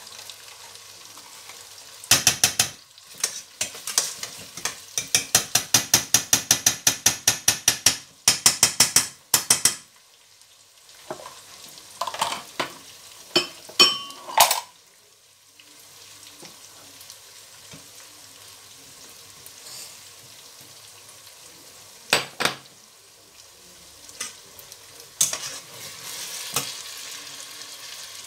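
Mutton, spices and yogurt frying in a stainless-steel pot with a steady sizzle, stirred briskly with a slotted spatula that scrapes the pan about four times a second for several seconds. Later come a few separate clinks and taps of the spatula against the pot over continued sizzling.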